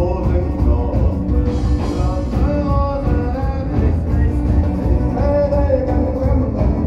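Live band music played loud through a concert PA and heard from within the crowd: guitar and other instruments over a steady beat.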